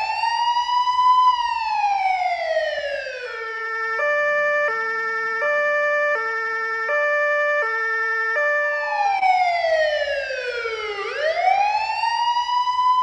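Police car siren: a wail that rises and falls, switching about three seconds in to a two-tone hi-lo pattern that alternates roughly every three-quarters of a second, then going back to the rising-and-falling wail near the end. A faint engine rumble lies beneath it.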